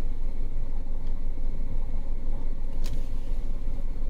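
Car engine idling in neutral, a steady low rumble heard from inside the cabin, with a single sharp click about three seconds in.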